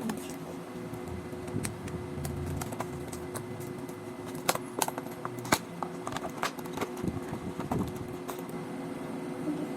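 Irregular sharp clicks and taps of small items being handled, a few at a time rather than steady typing, over a faint steady hum.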